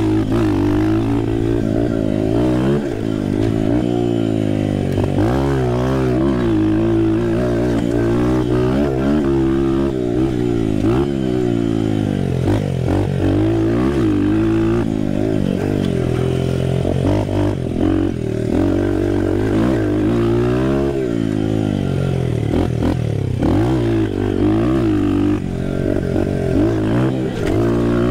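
Dirt bike engine revving up and down while being ridden, its pitch rising and dropping every second or two with short lets-off of the throttle.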